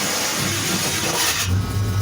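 Chevy square-body pickup's engine being started: a loud noisy rush of cranking and firing that drops away about a second and a half in, leaving the engine running at a steady low idle.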